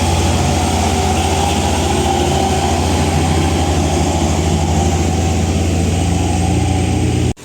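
Heavy bus or truck diesel engine running loud and steady with a deep hum, cutting off abruptly near the end.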